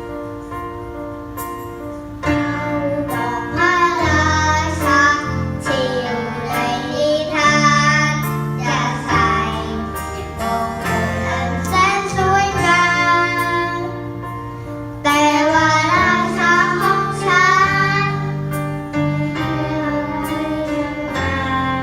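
A girl singing a slow Thai song over an instrumental backing track with a bass line and plucked-string sounds. The voice comes in about two seconds in, after a short instrumental opening, and sings long held phrases with vibrato.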